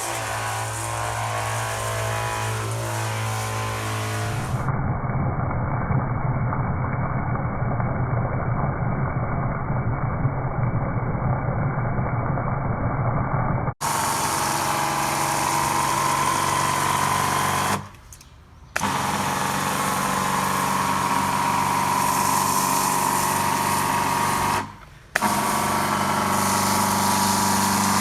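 Parkside PDR 12 A1 battery pressure washer's small pump motor running with a steady hum, cutting out briefly twice, about 18 and 25 seconds in.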